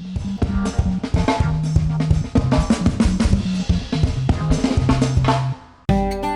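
Background music: a drum-kit beat with a bass line, which fades out about five and a half seconds in, followed just before the end by a different tune with held notes.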